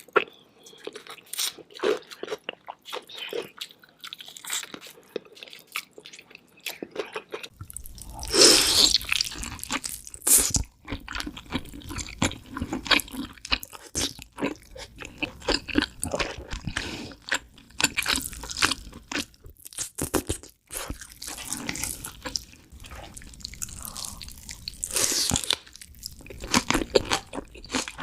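Close-miked eating: a person biting into and chewing crunchy food, a dense run of crisp crackling crunches with several louder bites along the way.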